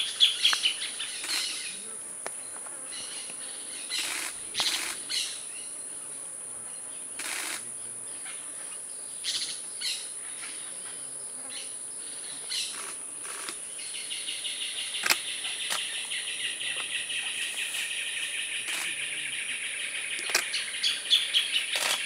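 Insects and small birds: a steady high insect whine, scattered short bird chirps, and from about two-thirds of the way through a fast, pulsing trill. The owl itself does not hoot.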